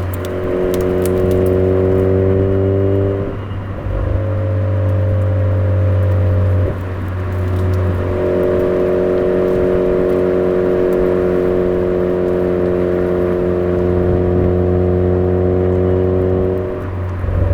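Exhaust of a Suzuki Swift Sport ZC33S through a Fujitsubo aftermarket muffler, running at a steady engine speed while driving. The note drops out and dips briefly three times: about three and a half seconds in, about seven seconds in, and near the end.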